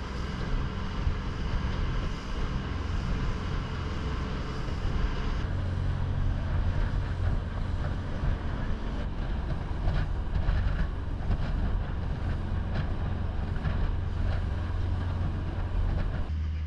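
Motorboat engine running steadily under way, with wind buffeting the microphone and water rushing past the hull.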